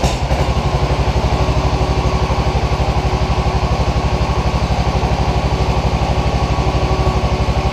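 Tecumseh small engine on a garden tractor running steadily with an even exhaust beat, freshly cold-started on about half choke and a little throttle, with its carburetor on factory settings.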